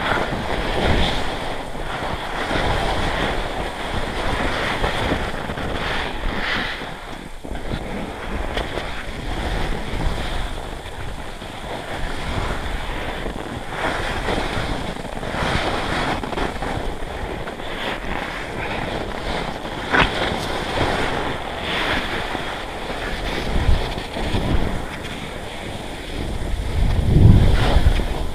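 Telemark skis sliding and side-slipping through deep powder snow, a continuous rushing hiss that swells and fades with each turn. Wind buffets the microphone throughout, with heavy low rumbling gusts near the end.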